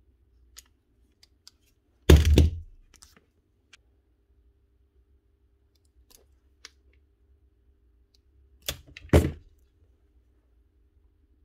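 Hand tools knocking on a workbench: a heavy thunk about two seconds in, then two knocks about half a second apart later on. Faint small clicks come between them as the wire cores of a new power lead are worked with pliers.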